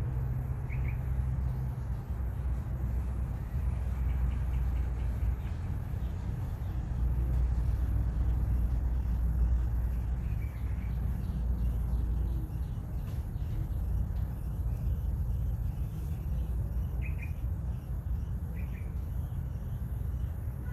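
Outdoor ambience: a steady low rumble, louder in the middle, with a few short bird chirps.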